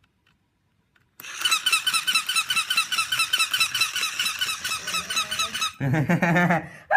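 Loud, rapid, evenly repeating squeaking of about seven or eight high chirps a second. It starts suddenly about a second in, runs for over four seconds, and gives way to a short, lower, different sound near the end.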